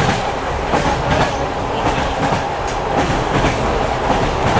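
Clickety-clack of an old railway passenger carriage's wheels knocking over rail joints, with a steady rolling rumble underneath, heard from inside the carriage.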